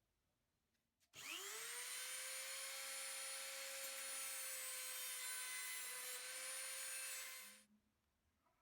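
A small high-speed electric motor switched on about a second in, spinning up quickly to a steady whine with a broad hiss, running for about six seconds before it is switched off.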